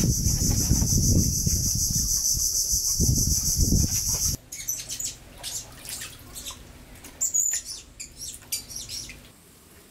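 Outdoor tropical ambience: a steady, high-pitched insect drone over low rumbling, which cuts off abruptly about four seconds in. After that the sound is much quieter, with scattered short chirps and small clicks.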